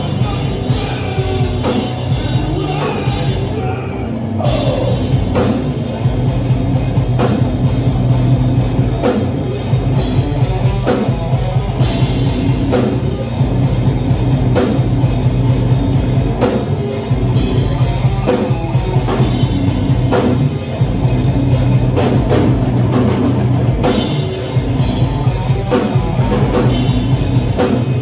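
A live heavy rock band playing loud: electric guitars through amp stacks over a drum kit.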